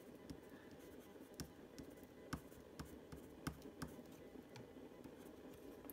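Prismacolor coloured pencil rubbing on paper in small, faint strokes, with irregular light ticks as the lead strikes and lifts.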